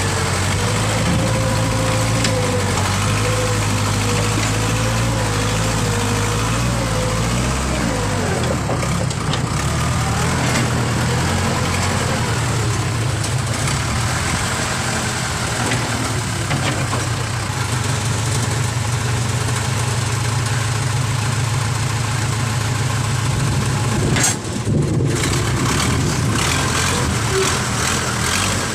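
Heavy machinery engine running steadily, its note shifting about eight seconds in and briefly dipping near the end.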